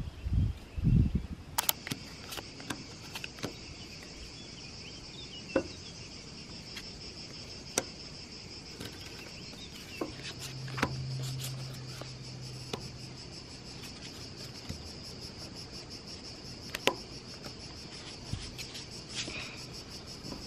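Insects chirring steadily in a high, even band, with scattered light clicks of playing cards being laid and dealt on a wooden table. A low hum rises for a couple of seconds about halfway through.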